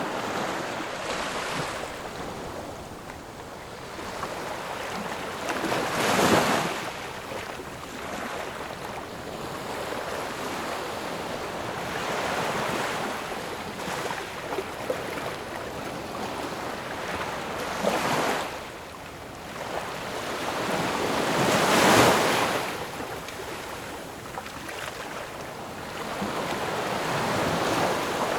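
Ocean waves washing onto a shore, a steady hiss of surf with waves breaking loudest about six seconds in and again near twenty-two seconds.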